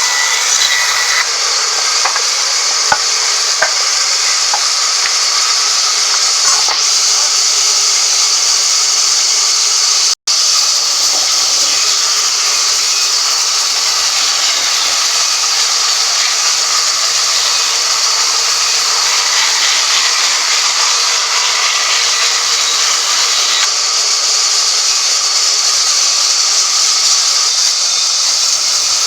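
Woodworking machinery running steadily, a loud, even hiss with no clear rhythm. It cuts out for an instant about ten seconds in.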